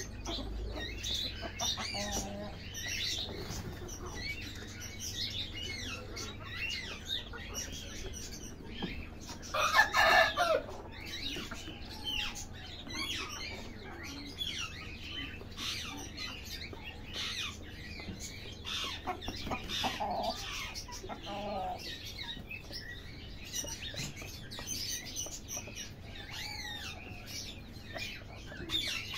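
Golden Buff chickens clucking and calling, with one loud call about a third of the way through and quieter calls later. Many high chirps of other birds sound throughout.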